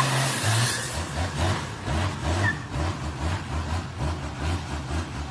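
Rat rod's turbo diesel engine revving hard with tyres spinning in a burnout, which breaks off about a second in; the diesel then runs on at low revs with an uneven low rumble.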